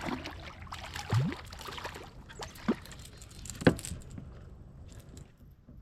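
Scattered knocks, clicks and small water sounds as a hooked speckled trout is handled and landed at a kayak, with one sharp knock a little over halfway through.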